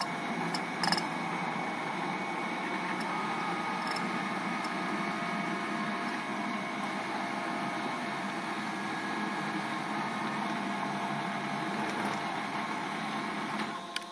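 Steady running noise of a servo-driven CNC router with a few faint whining tones over it, cutting down sharply near the end to a low electrical hum.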